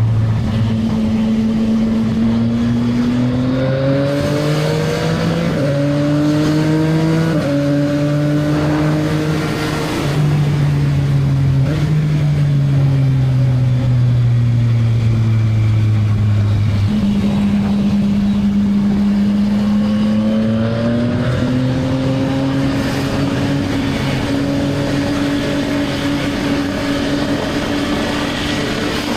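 CFMoto 675NK's three-cylinder engine through its stock exhaust, pulling hard with the pitch climbing and dropping back at two upshifts a few seconds in. It then eases off and settles lower through the middle, before building again and holding a steady cruise near the end.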